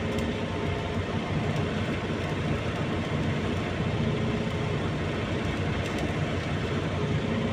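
A large engine running steadily at a constant speed, with a low hum.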